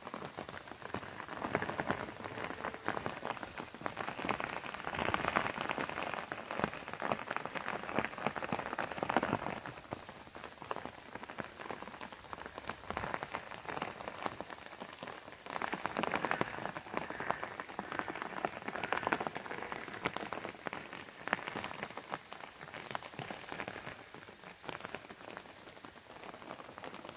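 Rain falling on the leaves and fruit of apple trees, a dense stream of drop hits that grows heavier twice, a few seconds in and again about midway.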